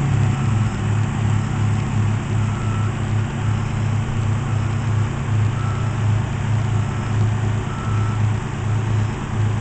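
Detroit Diesel 6-71 two-stroke inline-six diesel of a 1977 American LaFrance Squrt fire truck running steadily at low speed, a deep hum with a slow, even pulse.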